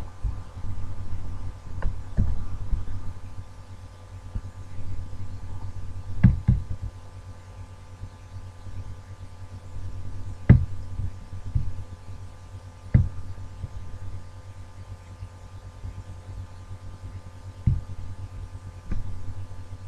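Steady low hum with about eight scattered soft knocks and thumps, the loudest about ten seconds in.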